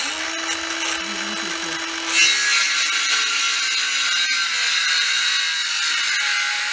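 Ryobi ONE+ cordless circular saw spinning up and running. About two seconds in, the blade bites into a wooden baseboard and the sound turns louder and rougher as it cuts through.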